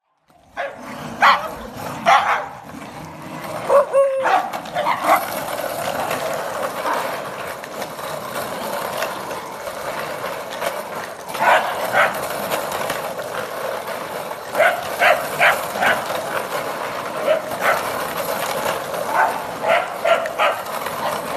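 A pack of small terriers, Scottish terriers with a Jack Russell and a Sealyham, barking and yapping in play. There are a few sharp barks at the start, then quick clusters of yaps around the middle and again near the end.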